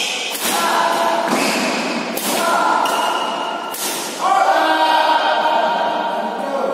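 Badminton rackets striking the shuttlecock during a rally, a few sharp hits that ring out in a large hall over the first four seconds, overlaid by players' voices in long, held calls. The loudest call starts about four seconds in and lasts to the end.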